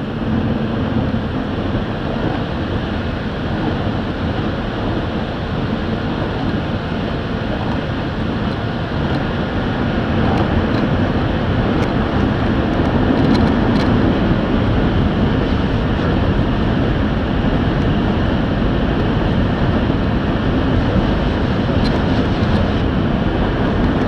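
Automatic car wash air dryer blowers running, a steady loud rush of air heard from inside the car that grows louder about ten seconds in.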